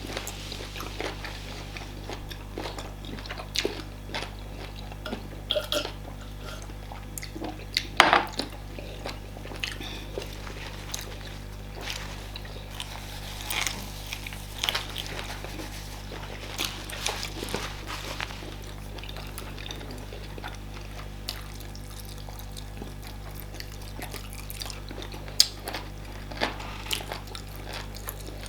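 Close-up mukbang eating sounds: wet chewing and mouth noises from eating fufu and banga soup with meat, with scattered clicks and clinks of dishes, and one sharp knock about 8 seconds in, over a steady low hum.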